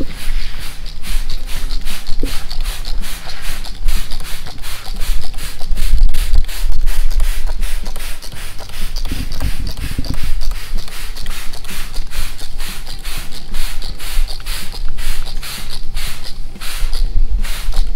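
Hand trigger spray bottle squirting rapidly and repeatedly, a few evenly spaced hissing squirts a second. The hot water is being sprayed onto freshly glued aircraft fuselage fabric to shrink it tight and pull out the wrinkles.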